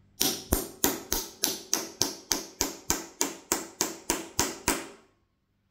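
Hammer tapping a steel flat bar laid over brass shotgun-shell whistle parts, driving one piece into the other to join them. It strikes about sixteen even blows, roughly three a second, each with a short metallic ring, and stops about five seconds in.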